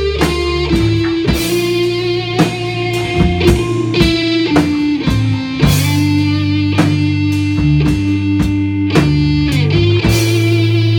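Rock band playing live: distorted electric guitar through a Marshall amplifier over low bass notes and drums, with regular drum hits and cymbal crashes.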